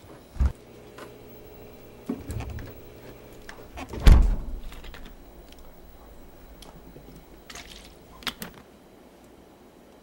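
A few separate knocks and thumps in a quiet room, the loudest a heavy thud about four seconds in, with smaller bumps and rustles between.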